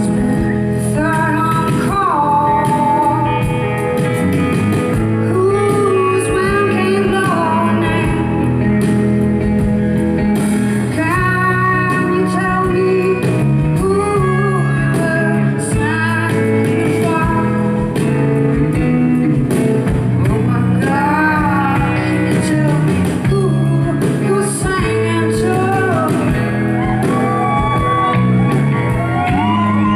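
A live band playing electric guitar and keyboard, with a woman's voice singing over it.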